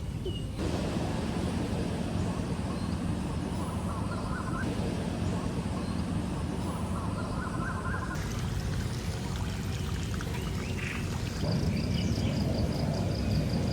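Park ambience with a steady low background rumble and birds calling: twice, a series of short notes climbing in pitch, and near the end quick high-pitched trills. The background changes abruptly a few times.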